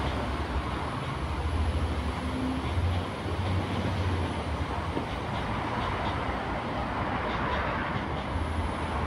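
Northern Ireland Railways Class 4000 diesel multiple unit passing at speed, a steady low rumble of underfloor diesel engines and wheels on rail. Faint, evenly spaced clicks of the wheels over rail joints come in during the second half.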